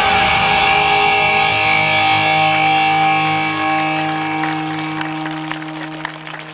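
The final held chord of a recorded yosakoi dance track with electric guitar, played over loudspeakers, ringing out and slowly fading. Scattered clapping starts near the end as it dies away.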